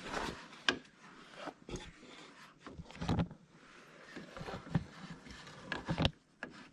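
Small sharp plastic clicks and rubbing from handling a wedge-base turn-signal bulb and its plastic socket, as the bulb is pressed in. A louder cluster of knocks comes about three seconds in.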